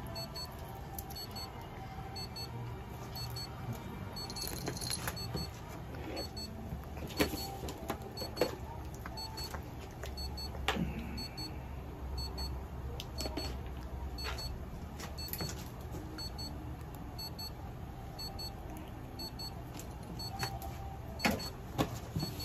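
Steady low hum with scattered light clicks and knocks.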